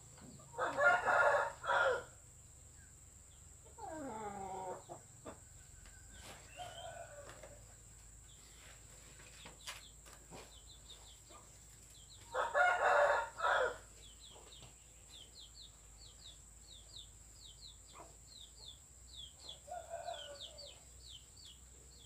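A rooster crowing twice, about a second in and again about twelve seconds later, with shorter calls from the fowl in between. A quick string of high chirps runs through the second half.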